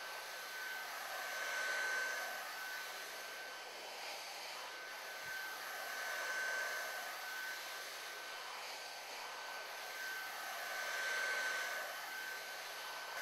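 Electric heat gun blowing steadily with a thin whine, its sound swelling three times as the nozzle is moved around a molded heat-shrink cable boot. This is the post-heat that cures the boot's precoat adhesive.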